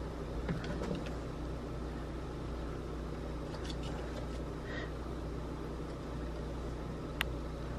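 Steady low machine hum, with faint soft rustles as hands fold dough strips on parchment paper, and a single sharp click near the end.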